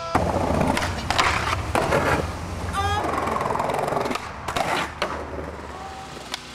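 Skateboard wheels rolling on concrete, with sharp clacks of the board popping and landing, the loudest impacts a little past halfway.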